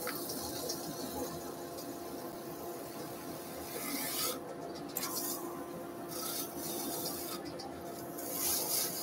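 Rotary sander with 400-grit abrasive rubbing on a sycamore plate turning on a wood lathe: a steady scratchy hiss over the lathe's faint hum, swelling louder for a moment about four seconds in, again around six to seven seconds, and near the end. This is the fine final sanding of the turned plate.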